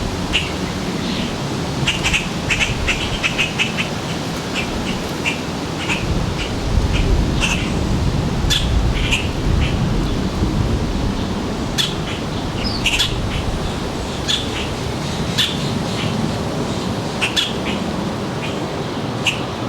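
Small birds chirping: many short, high chirps in quick runs, over a steady low rumble.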